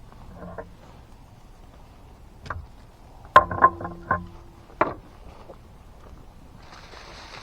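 A few sharp knocks and clanks, with a quick cluster about three and a half seconds in that rings briefly with a steady tone, like hard objects or metal cookware being handled; a short hiss follows near the end.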